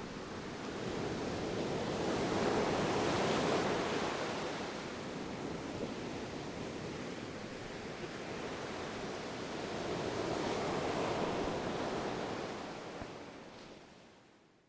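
Ocean waves washing in, with two broad swells in the surf, then fading out near the end.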